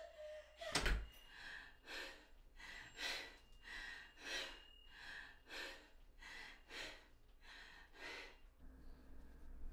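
A sharp thud about a second in, then a woman's heavy, gasping breathing, about two breaths a second, that stops near the end.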